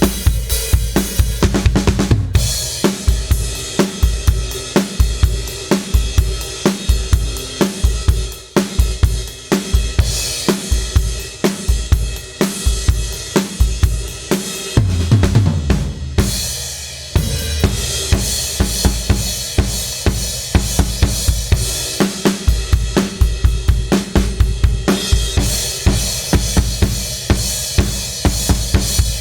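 Drum kit played in a fast, steady groove of kick, snare, hi-hat and cymbals, run through a Behringer T1952 tube compressor/limiter. There is a short break about halfway through before the beat comes back in.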